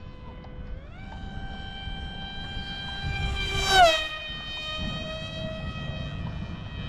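Radio-controlled model airplane motor whining in flight. Its pitch rises as the throttle comes up, then drops sharply as the plane makes a close, fast pass, and it holds a lower note after. Wind rumble on the microphone runs underneath.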